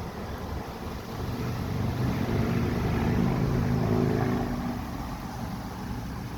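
An engine passing by: a steady low hum that grows louder, peaks a few seconds in and fades away, over a rumble of wind on the microphone.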